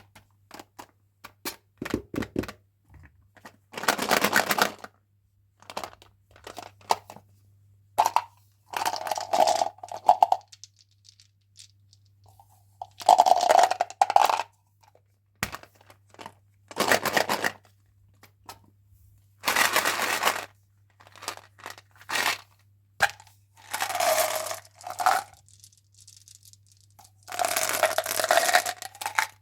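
Plastic candy and gum wrappers being torn open and crinkled, in bursts about a second long every few seconds, with small clicks and rustles in between.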